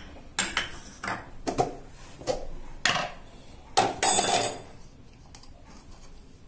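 A steel spoon clinking and knocking against small plastic bowls and a plastic spice jar as the jar is opened and spices are spooned out: about eight short taps over four seconds, then a longer ringing clatter about four seconds in.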